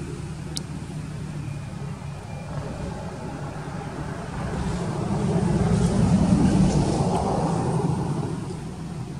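Low rumble of a motor vehicle passing by. It swells to its loudest about six seconds in, then fades.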